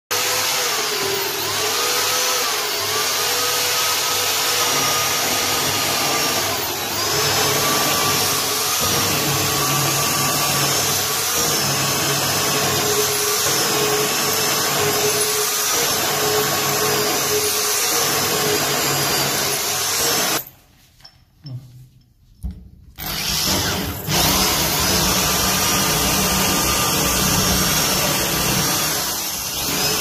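Electric drill running under load, boring into a door to fit a lock, its motor pitch wavering as it cuts. It stops for about three seconds about two-thirds of the way through, with a couple of short blips, then runs again.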